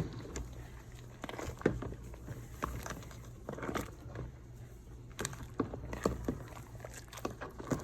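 A spoon stirring a pot of seafood boil, with irregular knocks and clinks against the pot over a steady low hum.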